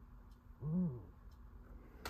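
Collins 75A-4 receiver's calibrator signal heard through its speaker as a low beat note. About a second in, the note briefly rises and falls in pitch once as the main tuning dial is rocked near zero beat to check the dial calibration.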